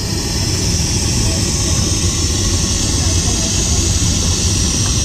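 Espresso machine's steam wand blowing steam with a steady loud hiss and a low rumble underneath.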